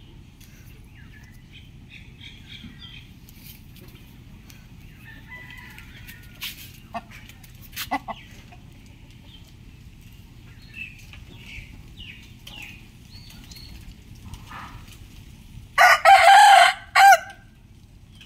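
A rooster crowing once loudly near the end, a single cock-a-doodle-doo of about a second and a half. Before it there are quieter clucks and chirps and a few sharp clicks, over a steady low background hum.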